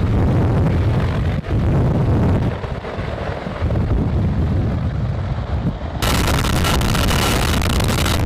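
CH-53E Super Stallion's three turboshaft engines and seven-blade rotor as the helicopter flies past, a low rumble broken up by wind buffeting the microphone. About six seconds in it changes abruptly to the helicopter's noise heard from a camera mounted on the aircraft: steadier and hissier, with a faint steady whine.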